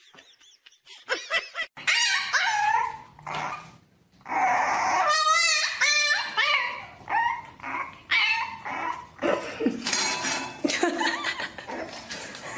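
A dog vocalising in a string of short calls that bend up and down in pitch, starting about two seconds in. There is a brief pause near the middle, then a fast warbling call.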